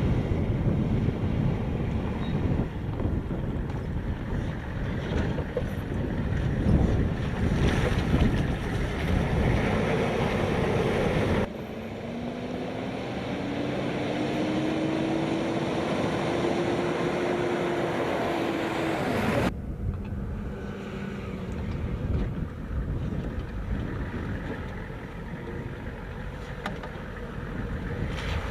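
Vehicle engine noise with wind buffeting the microphone, in three stretches joined by abrupt cuts. In the middle stretch an engine's pitch rises and then holds steady until the cut.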